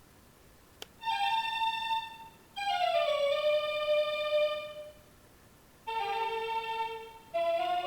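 Seiko NR435P quartz alarm clock playing one of its built-in electronic melody alarms through its small speaker. After a click just under a second in, it plays phrases of held, stepping notes with short gaps between them.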